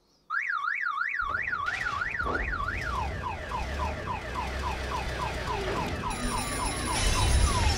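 Electronic alarm siren sounding: a tone warbling up and down about four times a second, then switching about three seconds in to quick repeated falling chirps, with a low rumble underneath.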